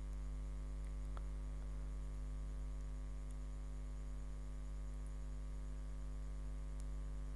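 Steady electrical mains hum in the recording, a low drone with a buzz of evenly spaced overtones above it, unchanging in level. One faint tick about a second in.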